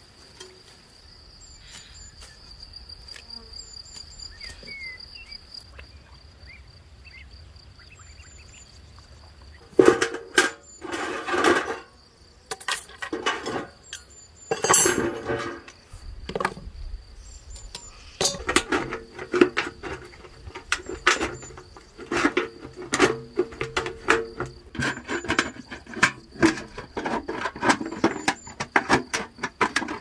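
A steady high insect drone with short chirps. About ten seconds in, a galvanized steel bucket starts clanging and scraping as it is handled. Then comes a long run of repeated crunching clicks as tin snips cut through its sheet metal.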